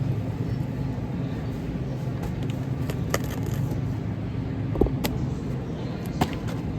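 Steady low road and engine rumble inside a moving car, with a few sharp clicks and knocks.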